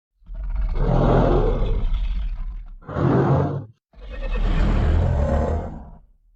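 Three kaiju monster roar sound effects in a row: a long roar, a short one, then another long roar, each cut off into silence.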